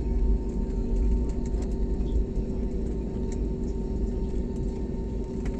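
Airliner cabin noise: the jet's engines and airflow make a steady deep rumble with a constant hum through it.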